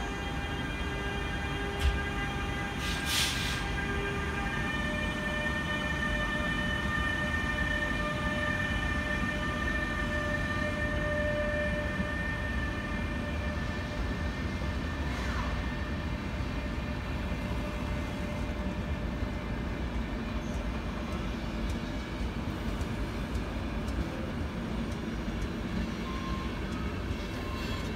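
RegioJet class 386 (Bombardier TRAXX) electric locomotive hauling a passenger train away, with steady electrical tones from the locomotive over the continuous rumble of coach wheels on the rails. A brief hiss comes about three seconds in.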